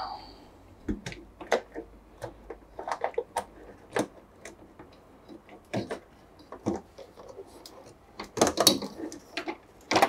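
Irregular light clicks and knocks of plastic and metal parts handled inside a washing machine's open cabinet as a switch is worked loose, with a busier run of clicks near the end.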